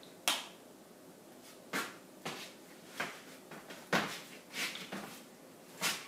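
A string of short, irregular knocks and rustles, about eight in six seconds, from someone moving close to the microphone.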